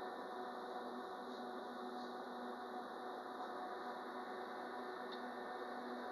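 Citadis Dualis tram-train running at a steady speed, heard from inside the driver's cab: an even rumble with a constant multi-tone hum and a few faint ticks.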